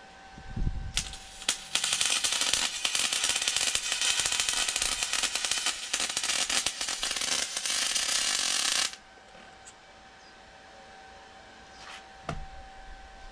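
MIG welder arc crackling as a bead is laid on golf-cart chassis tubing, shielded with a half-argon, half-CO2 mixed gas. Two short tack blips come about a second in, then one continuous bead of about seven seconds that stops abruptly.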